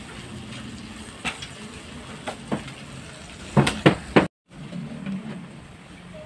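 Chopped onion and tomato sizzling in oil in a nonstick wok while a spatula stirs and knocks against the pan, with a quick run of louder knocks about three and a half seconds in. The sound cuts out for a moment just after.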